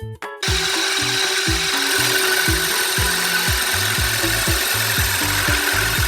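Drill driver running, spinning a wooden pulley blank while a tool rubs against the wood to shape it. The loud steady rubbing starts suddenly about half a second in, over background music with a steady beat.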